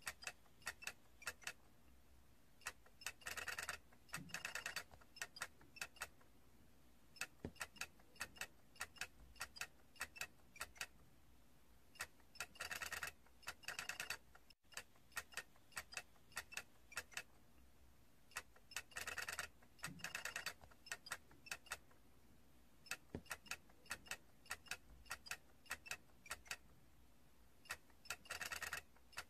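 Light clicking from a small plastic toy: scattered single ticks, with a run of rapid clicks about every eight seconds, each run in two short bursts a second or two long.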